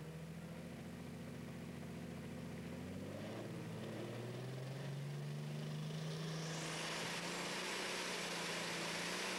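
Competition pulling tractor's diesel engine running at the start line, its pitch stepping up about three seconds in. A loud rushing noise builds from about two-thirds of the way through as it is revved to pull away.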